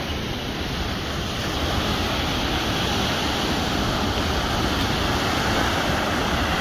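Surf breaking and washing up a sandy beach in a steady rush, with wind rumbling on the microphone.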